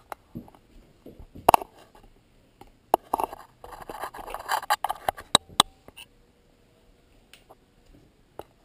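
Close handling noises from a blowgun and camera being moved about: scattered clicks and taps, a stretch of rustling in the middle, then two sharp clicks a little past halfway.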